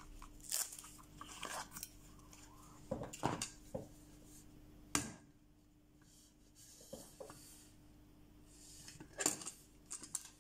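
Scattered light clicks and knocks of a steel knife and a 3D-printed plastic sharpener base being handled on a table, metal tapping against plastic and magnets, the loudest knock about five seconds in.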